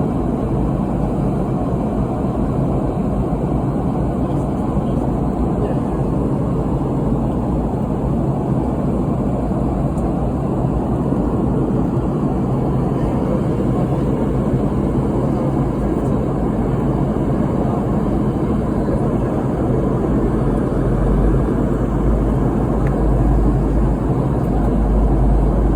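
Steady cabin noise of a Boeing 717-200 in flight: a low rumble of airflow and its rear-mounted Rolls-Royce BR715 engines, swelling slightly in the low end near the end.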